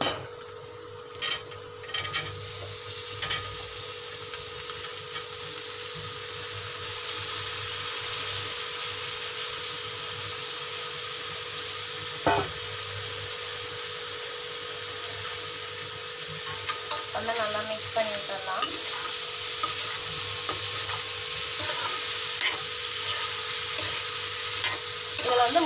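Cauliflower florets frying in an onion-and-spice masala in an aluminium kadai: a steady sizzle with the scrape and clink of a metal spoon stirring. A few sharp clinks come in the first seconds, and the sizzle grows louder about six seconds in.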